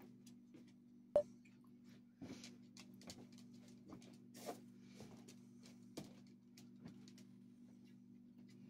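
A few light clicks and knocks from painted wooden nesting dolls being handled and set on a table, the sharpest about a second in, over a steady low hum.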